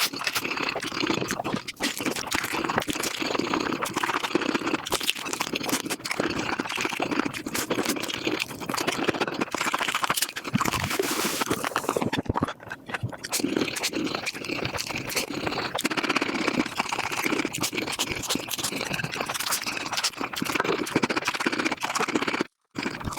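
Close-miked mukbang eating sounds of Korean food sped up five times: a dense, continuous chatter of chewing, crunching and smacking clicks. A brief dropout near the end marks a cut between clips.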